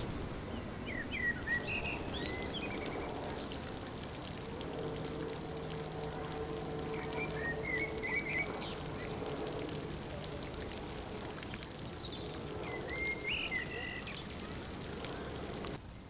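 Steady splashing of running water, with short phrases of small songbird chirping three times over it and a faint low hum in the middle.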